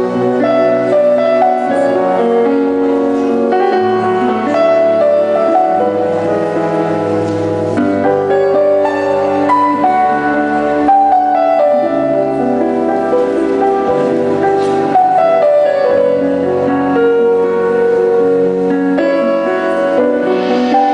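Background music led by piano or keyboard, with held notes changing in a slow melody.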